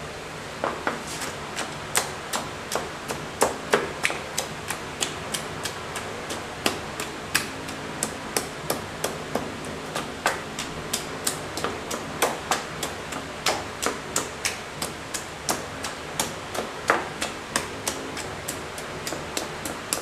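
Wooden masher pounding chopped pineapple in a cloth strainer to mash it for juice: a steady run of sharp knocks, about two to three a second.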